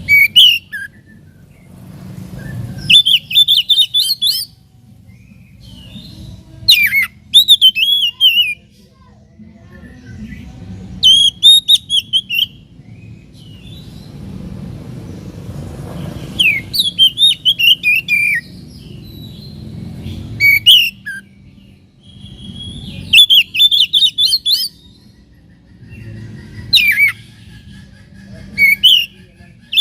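Oriental magpie-robin (kacer) singing: short loud phrases of quick whistled notes mixed with harsh rasping notes, repeated every three to four seconds.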